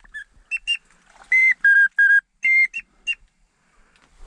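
Duck whistle call blown in a run of short, clear whistled notes of steady pitch, some in quick pairs, stopping about three seconds in: calling to a single duck circling the decoys.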